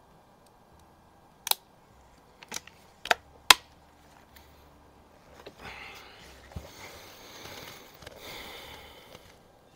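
Walther LGR match air rifle's action being worked by hand: four sharp metallic clicks of the lever and breech as it is loaded and closed, the last the loudest. These are followed by a few seconds of rustling handling noise and a light knock as the rifle is settled onto its rest.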